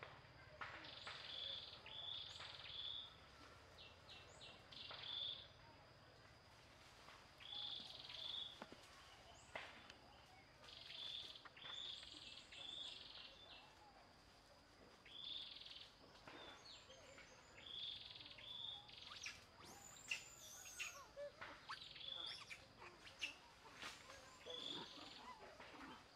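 Birds calling: a short high call repeated every two to three seconds, with more varied high chirps and whistles joining in the last third.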